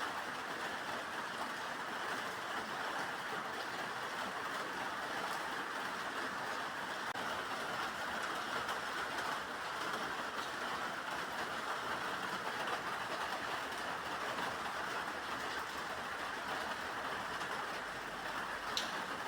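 Steady rain falling, an even hiss with no break, and a faint tick near the end.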